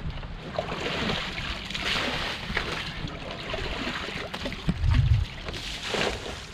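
Water sloshing and trickling at the edge of a seawater pit on the shore, with a brief gust of wind on the microphone about five seconds in.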